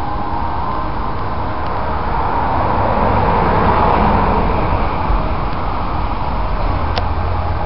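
Double-stack container train rolling steadily past: the continuous rumble and rail noise of loaded well cars passing close by, swelling a little midway.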